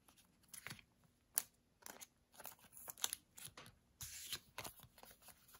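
Trading cards being handled: cards slid off a stack, flicked against each other and laid down on a playmat, making a series of faint clicks and short sliding rustles, the sharpest tick about a second and a half in.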